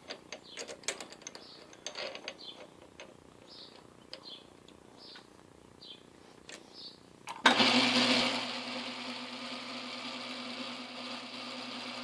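Scattered clicks and knocks of tool handling with short bird chirps, then about seven and a half seconds in a metal lathe's electric motor switches on with a jolt and runs with a steady hum.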